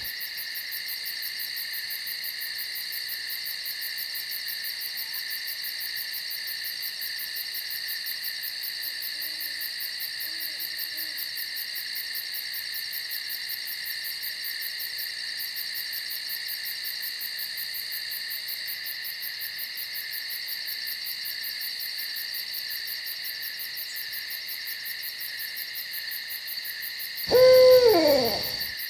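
Steady chorus of night insects, fast-pulsing and high-pitched, with one loud owl call near the end that falls in pitch over about a second.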